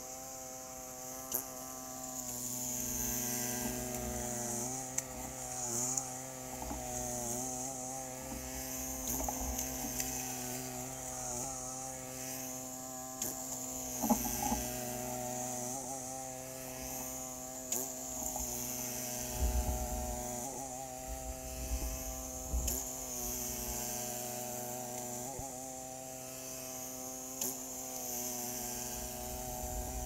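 Two-stage snowblower's small gas engine running steadily, its pitch wavering slightly, with a few light clicks and knocks.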